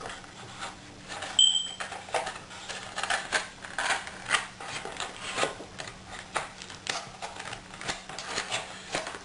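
Irregular clicks and light knocks of plastic laptop parts being handled and fitted back into a Dell Inspiron 1545, with a short high squeak about one and a half seconds in.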